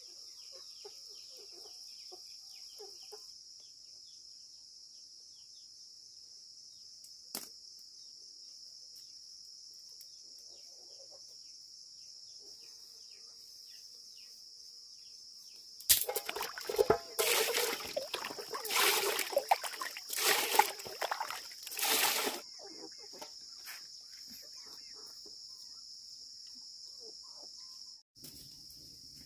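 Insects chirping as a steady high-pitched drone. Between about the middle and three-quarters of the way through, a run of loud, crackly, rustling bursts breaks in over it.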